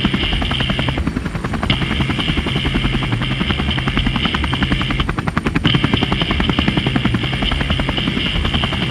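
Helicopter rotor chopping fast and steadily, with a high steady whine over it that drops out twice for about half a second.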